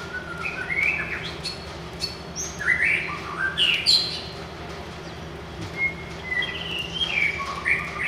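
White-rumped shama singing: varied whistled phrases of rising and falling notes, with a break of about a second halfway through before it sings again.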